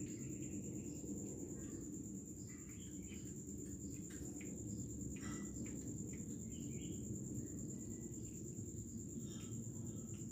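Faint, scattered clicks and crunches of a cat chewing a dead rat, over a steady low hum and a continuous high-pitched whine.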